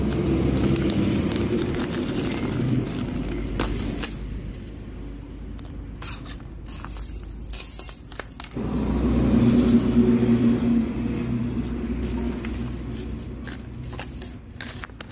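A metal link dog chain jangling and clinking as it is shaken out of a crinkling plastic bag onto a wooden table. A vehicle engine runs in the background, fading out a few seconds in and coming back louder about halfway through.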